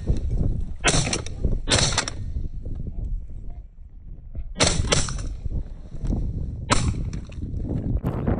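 Shotgun shots fired at a flock of geese flying over, four in all: about one second in, just under two seconds in, about four and a half seconds in and near seven seconds in. A steady low rumble runs beneath them.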